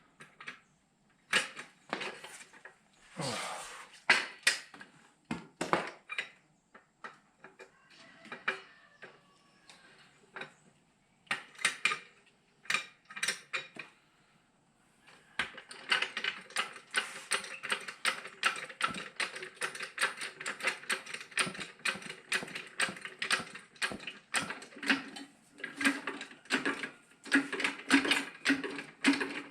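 A jack being worked to lift a zero-turn riding mower: scattered metal clicks and knocks, then a near-silent pause, then from about fifteen seconds in a fast, steady run of ratcheting clicks.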